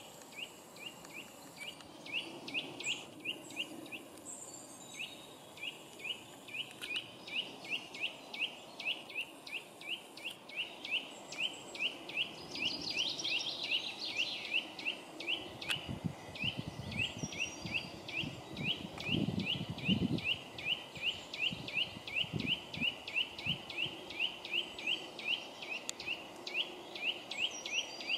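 Eurasian nuthatch calling loudly: a fast, steady series of piping notes, about three a second, each note sweeping upward. A low rumble comes in for a few seconds around the middle.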